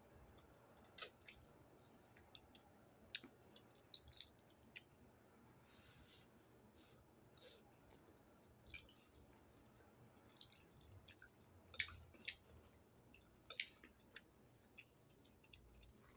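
Faint, sparse wet mouth sounds of eating and drinking up close: scattered sharp lip smacks and clicks at an irregular pace over quiet room tone.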